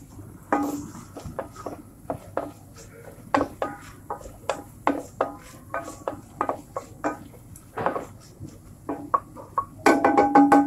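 A wooden spoon stirring chopped onions in an enamelled cast-iron pot: irregular knocks and scrapes against the pot, each with a short ringing note, with a louder cluster near the end.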